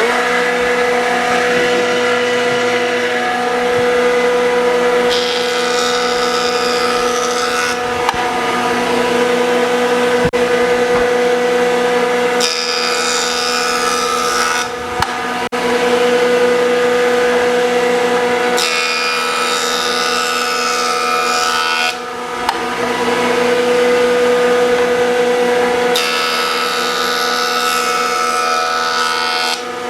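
Jointer running with a steady motor-and-cutterhead whine while a board's edge is fed across the spinning knives four times. Each pass adds a hissing, shaving cutting noise over the whine.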